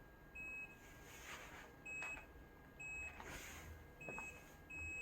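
Faint electronic beeps: four short, high beeps roughly a second apart, then a longer held beep near the end.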